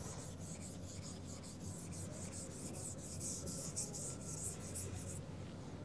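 Scratchy writing strokes of a pen on a writing surface, many quick short strokes in a row that stop a little before the end.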